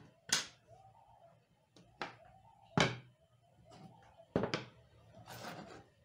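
Hand tools, a hammer and a screwdriver among them, being set down on a wooden workbench: several sharp knocks, the loudest a little before halfway. A brief scraping sound comes near the end.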